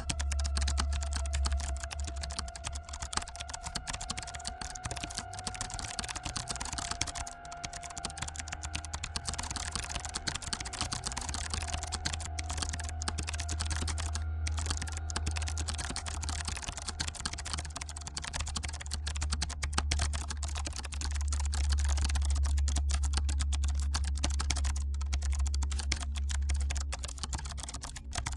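Computer keyboard typing: a rapid, unbroken run of keystrokes over a steady low hum. A held tone fades away during the first half.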